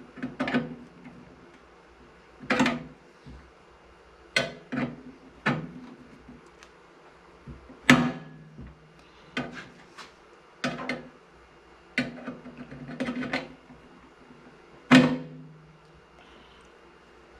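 Needle-nose pliers clicking and knocking against the plastic tabs on a microwave's turntable motor case as they are worked to snap them off: about a dozen irregular sharp knocks, the loudest about eight seconds in and near the end.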